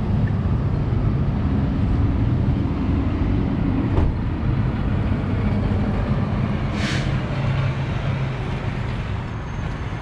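Steady low rumble of idling vehicle engines and road traffic, with a sharp click about four seconds in and a short hiss a few seconds later.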